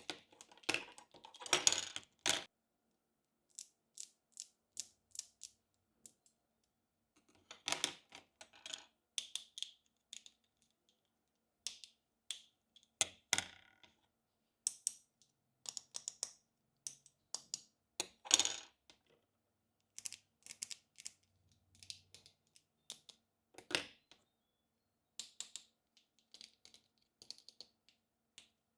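Small plastic toy kitchen pieces being handled and set down: irregular light clicks and taps, with a few louder crisp clusters.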